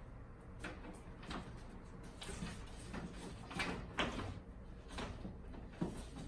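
Hard parts of a ceiling cassette air conditioner being handled: a string of irregular knocks and clatters, the loudest about four seconds in, over a steady low hum.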